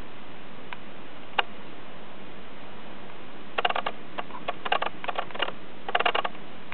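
Handling noise from a handheld camcorder: a single sharp click, then quick clusters of small clicks and ticks over a steady hiss.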